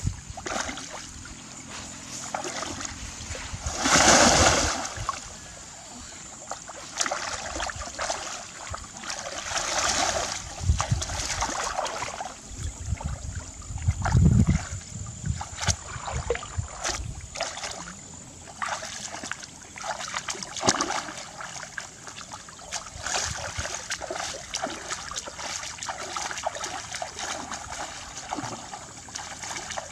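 Water splashing and sloshing in irregular bursts as someone works by hand in shallow water, with a loud splash about four seconds in and a heavy low thump about fourteen seconds in.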